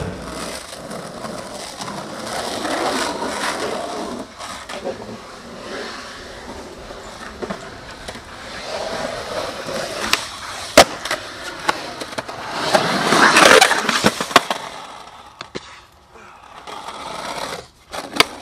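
Skateboard wheels rolling over concrete, with a sharp crack of the board about eleven seconds in, a louder stretch of noise a couple of seconds later, and a few clacks of the board near the end.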